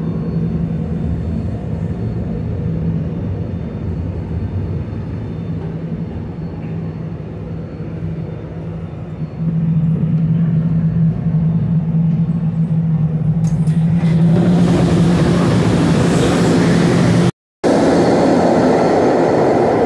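SEPTA Kawasaki light-rail trolley: a steady electrical hum with a low tone from the car, getting louder about halfway through, then a rising rush of wheel and motor noise in the tunnel station as the trolley moves off. A brief dropout near the end.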